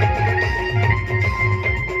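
Loud band music for dancing: a fast, steady, heavy bass beat under a melody of held notes.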